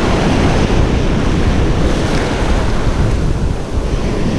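Ocean surf breaking and washing around the legs in the shallows, loud and continuous, with wind buffeting the microphone.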